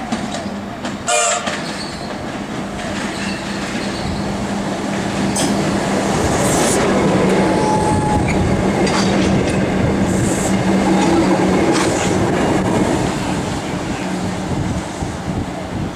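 Comeng electric suburban train running through without stopping: a steady hum and the wheels clattering over the rails and points, louder as the carriages pass. A brief horn blast sounds about a second in.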